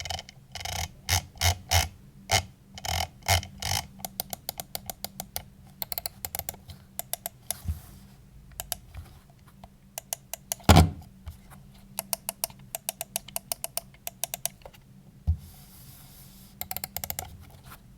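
VAXEE Zygen NP-01 gaming mouse buttons being clicked, singly at first and then in quick runs, with one heavier thump about eleven seconds in.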